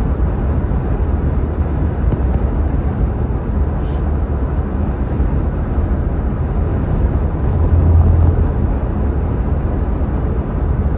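Steady road noise inside a moving car's cabin: a low rumble of tyres and engine while cruising along the highway.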